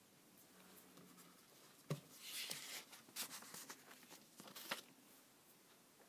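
A knock about two seconds in, then about three seconds of irregular rustling and crinkling, as an old paper hockey program is handled.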